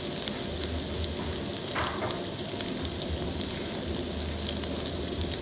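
Pork pieces, garlic and sliced onions sizzling in oil in a wok: a steady frying hiss with scattered small pops and crackles.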